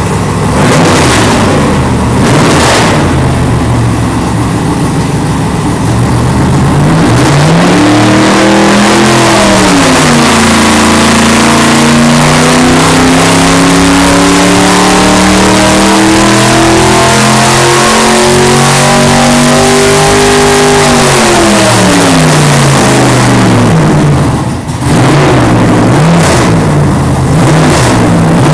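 Race engine running loud on an engine dynamometer: a few quick throttle blips, then a long pull under load with the revs climbing steadily for about ten seconds. The throttle then closes and the revs fall away, followed by more short blips.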